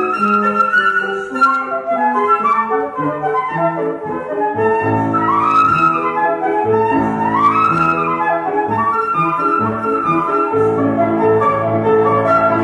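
Concert flute and grand piano playing a classical duet. The flute plays quick runs of notes, with two rising-and-falling glides about halfway through, over piano chords that grow fuller from around four seconds in.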